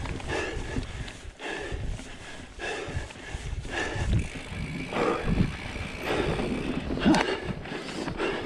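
A mountain biker panting hard in a quick, steady rhythm while pedalling uphill on a forest trail, the breathing of a rider worn out by the climbs. Low rumble from the bike rolling over the dirt trail runs underneath.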